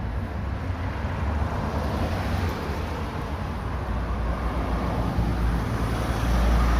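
Steady road and traffic noise while travelling along a street, with a low rumble that grows louder near the end.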